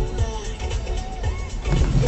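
Background music with a steady beat, over the low road and engine noise of a car driving; the low rumble grows louder near the end.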